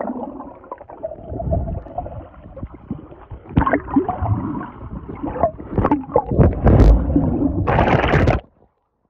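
Swimming-pool water heard through a submerged camera: muffled bubbling and churning from a swimmer moving close by. A louder rush of bubbles comes near the end, then the sound cuts off suddenly.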